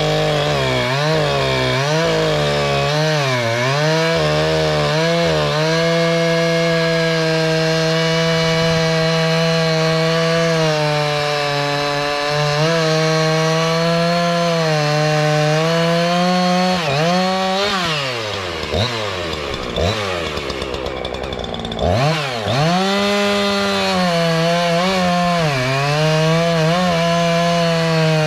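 Small two-stroke chainsaw running at high revs, its pitch dipping and rising several times, with deep drops and climbs back up about 17 to 22 seconds in.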